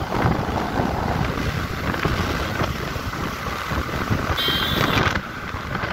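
Wind noise on the microphone of a moving motorcycle, with the bike's engine running underneath. A brief high-pitched tone sounds about four and a half seconds in.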